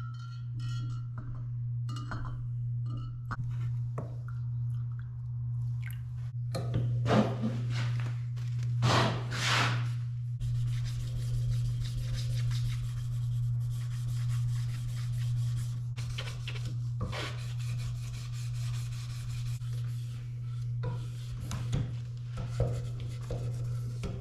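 Steel knife blade being hand sanded with sandpaper: irregular rubbing strokes, a few of them louder, over a steady low hum.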